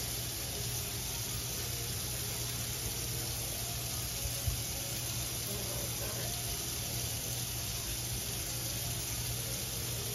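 Kitchen pull-down faucet running a steady stream of water into a stainless-steel sink. A single brief thump about halfway through.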